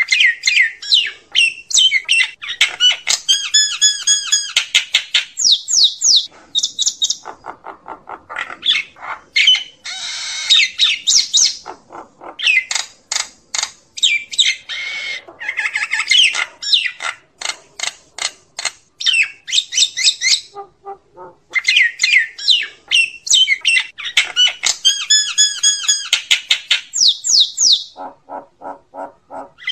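Common myna calling: a varied, unbroken run of harsh squawks, whistled notes and fast clicking chatter, the myna's flock-gathering calls.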